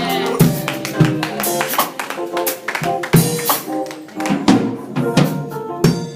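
Instrumental music with held chords and frequent sharp percussion hits, played under a pause in the preaching.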